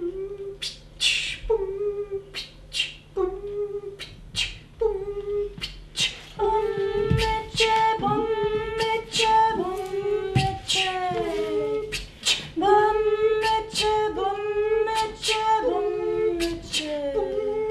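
Improvised wordless singing by several voices, with sharp clicks in between. Short repeated notes come about once a second at first; from about six seconds in, the voices overlap in longer held notes and falling glides.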